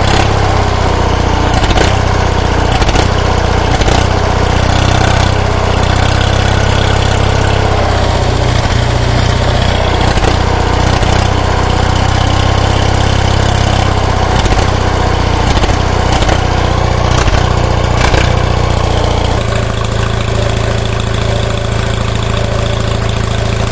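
1987 Onan 4.0 kW RV generator engine running steadily at constant speed, warming up after a cold start. Its exhaust goes out a short tailpipe through an Austin Mini muffler. The deep exhaust tone lessens somewhat near the end.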